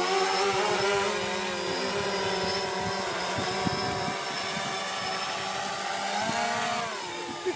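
DJI Phantom 3 quadcopter's propellers buzzing steadily in flight, the pitch dipping and climbing back near the end.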